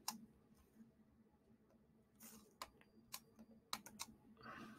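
A handful of faint, irregular clicks from a computer's mouse and keys, with a soft rustle near the end.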